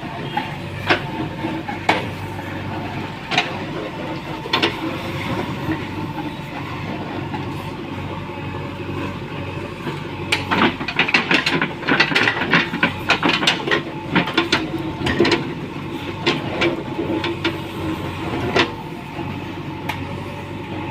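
JCB 3DX backhoe loader's diesel engine running steadily, with scattered metallic clanks and knocks that come thickest from about ten to fifteen seconds in.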